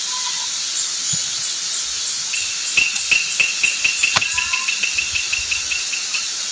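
Steady high-pitched insect chorus in forest. From about two seconds in, a rapid run of evenly spaced high chirps, about five a second, sounds over it, with a few sharp clicks.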